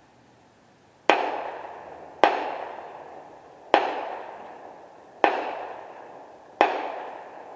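Five gunshots in quick succession, spaced about a second and a half apart, each with a reverberating tail that fades over about a second.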